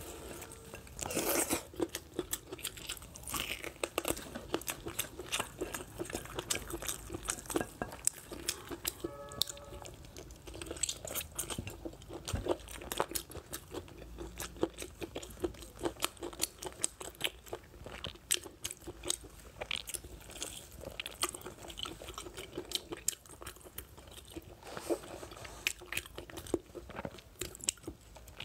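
Close-miked eating of braised lamb leg: biting the meat, tearing it from the bone and chewing, with many short sharp clicks throughout.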